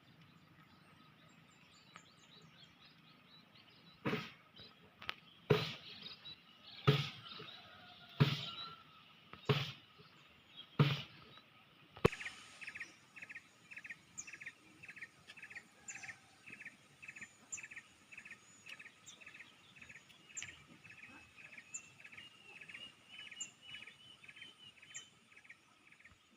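Six hard strikes, about a second and a half apart. Then a bird chirping in a quick, even series of a few calls a second.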